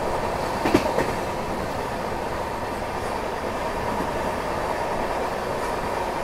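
Passenger express train running along the track: steady rolling noise of the coach's wheels on the rails, with one sharp click about three-quarters of a second in.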